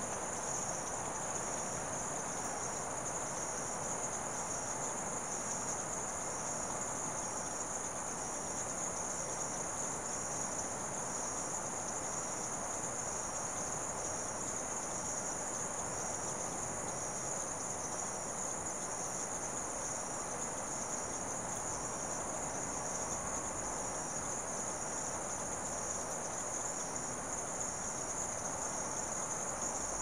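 Evening chorus of insects, a steady high shrill trill, over a dense lower chorus of frogs; it runs on without change.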